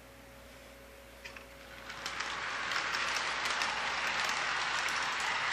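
O gauge model freight train running along the layout track: a steady rattling rush of wheels and motor with small clicks. It swells up about two seconds in as the cars come past and then holds steady.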